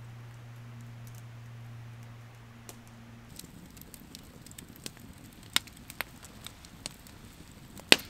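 A steady low hum that cuts off about three seconds in, followed by scattered, irregular clicks and taps, with one sharp click near the end.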